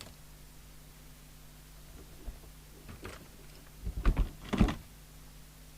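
Clicks and thumps of a test-equipment lead's plug being handled and pushed into a socket on a CB base station, loudest in a cluster about four seconds in, over a steady low hum.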